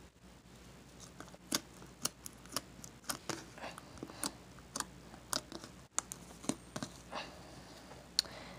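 Orbeez Crush slime being squeezed and jiggled by hand, giving short wet clicks and pops about twice a second.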